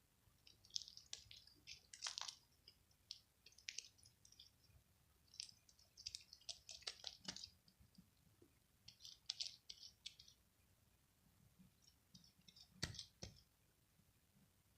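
Sticky glue slime being squeezed and worked by hand, giving faint wet clicking and crackling squishes in several short bursts.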